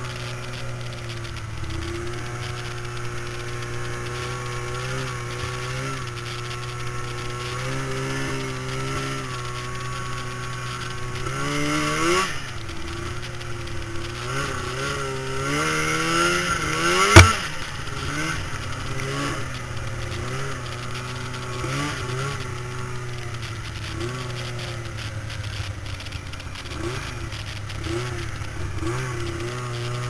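Snowmobile engine running under way, its pitch rising and falling again and again with the throttle. A single sharp knock a little past halfway through is the loudest sound.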